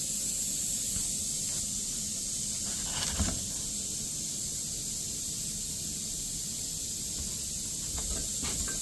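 A steady hiss with a low rumble underneath, and a faint knock about three seconds in and a few more near the end.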